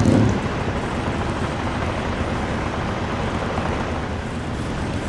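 Steady vehicle rumble, with a brief low thump right at the start.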